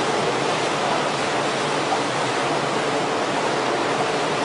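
Seawater churning and breaking around a small lifeboat dragged alongside a moving ship's hull: a steady, unbroken rush of water.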